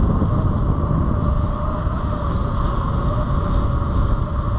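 Sur Ron Light Bee X 60V electric dirt bike riding along a gravel road: a steady motor whine over a heavy low rumble of knobby tyres on gravel and wind on the microphone.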